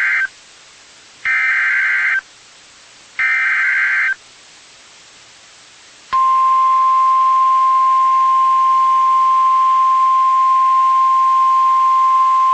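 Emergency Alert System SAME header: the end of one burst of warbling data tones, then two more bursts about a second long each. About six seconds in, the steady 1050 Hz weather radio warning alarm tone begins, which signals that a new severe thunderstorm warning is coming.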